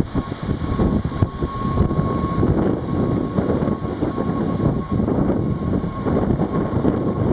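NS Sprinter Lighttrain electric multiple unit running past along the platform: a steady rumble of wheels on rail.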